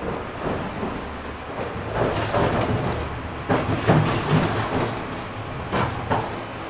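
Running noise inside a 71-931M "Vitiaz-M" articulated tram under way: a steady low rumble with irregular knocks and clatter from the wheels on the track, loudest in the middle.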